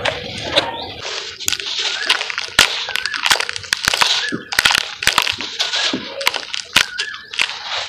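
Hands crushing and crumbling a packed cake of dry cement powder in a plastic basin. Crumbs and powder pour with a gritty hiss, broken by frequent sharp cracks and snaps as clumps break apart.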